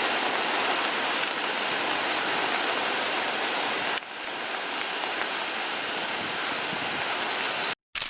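Steady rush of a waterfall, with a brief dip about halfway; it cuts off abruptly just before the end.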